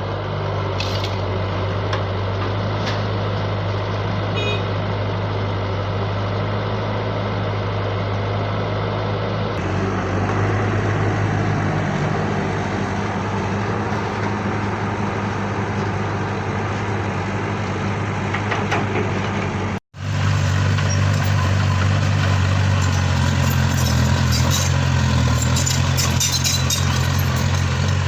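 Radio-controlled Huina toy construction machines running: a steady low motor hum that changes abruptly twice, with a brief dropout about two-thirds of the way in, and scattered light clicks near the end.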